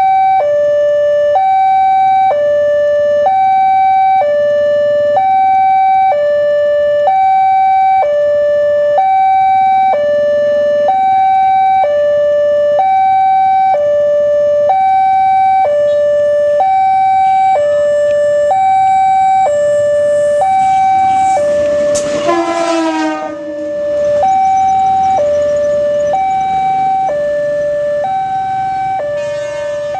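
Railway level-crossing warning alarm sounding its electronic two-tone signal, a high tone and a low tone alternating about once a second, that stops at the very end. About two-thirds of the way in, a brief sound falling quickly in pitch cuts across it.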